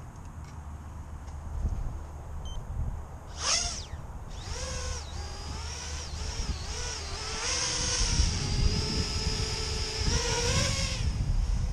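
Brushless motors and propellers of a 210-size 3D-printed FPV quadcopter spin up with a sharp rising whine about three and a half seconds in. They then whine in flight, the pitch rising and falling with the throttle, and grow louder before stopping abruptly near the end. Low wind rumble on the microphone runs underneath.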